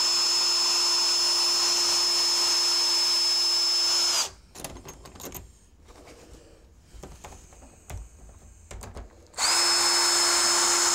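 Cordless drill/driver backing out the long screws of an old deadbolt. It runs with a steady whine for about four seconds and stops. A quieter stretch of small clicks and rattles from the lock hardware follows. It starts again near the end.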